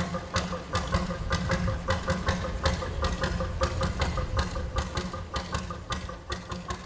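Slow-turning diesel engine of a traditional working narrowboat running at low speed, its exhaust beating about three times a second over a low rumble, fading away near the end.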